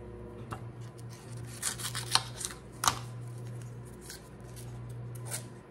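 Soft rustling and small clicks of a paper-wrapped butter stick being handled and unwrapped, with a sharper tap about three seconds in as a paring knife is set down on the granite countertop. A low steady hum runs underneath.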